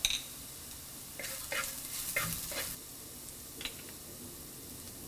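Turmeric powder being stirred into sautéed shallots, ginger, garlic and curry leaves in a clay pot over low flame: soft scrapes of the utensil against the clay, clustered from about a second in, over a faint sizzle of hot coconut oil.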